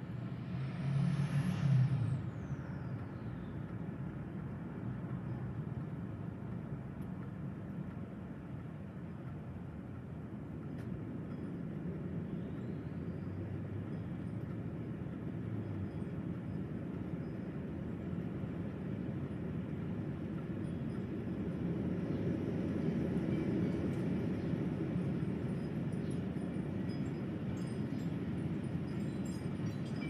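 Strong gusty wind blowing over the microphone and through the trees: a steady low rushing that swells about two-thirds of the way through. A brief louder rush with a rising-then-falling hiss comes about a second in, and wind chimes start to tinkle faintly near the end.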